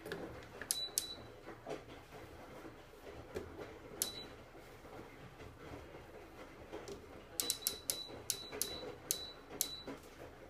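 Faint low hum of a GE front-loading washing machine running, with a dozen or so sharp clicks that each ring briefly at one high pitch, in irregular clusters and thickest near the end.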